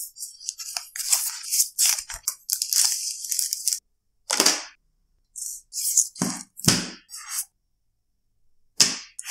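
Smartphone box packaging, paper inserts and plastic parts, handled by hand: short crackling rustles and clicks, separated by several silent gaps.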